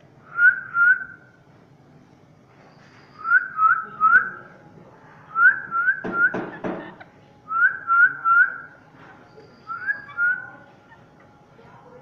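Whistling in short clear notes that swoop up and drop, in five groups of two or three with pauses between them, and a brief clatter of knocks about six seconds in.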